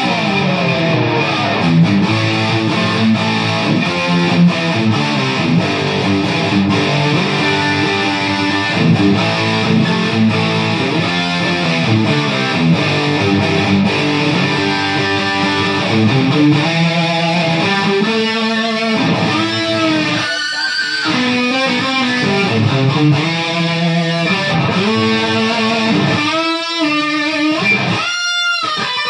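Ibanez electric guitar played through a Carvin V3 tube amp: sustained notes and chords, with string bends and vibrato in the second half.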